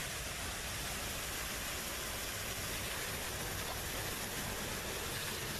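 Steady rushing hiss of a fountain's water jet spraying from a nozzle and splashing into the basin.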